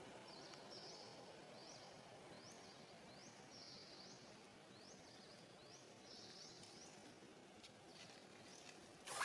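Quiet outdoor ambience in which a small animal gives short, high, rising chirps over and over. A sharp clatter comes at the very end.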